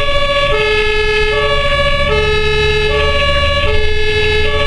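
German two-tone emergency siren (Martinshorn) on a bariatric ambulance, stepping back and forth between a lower and a higher tone about every three-quarters of a second. It is heard from inside the cab over engine and road noise during an emergency run.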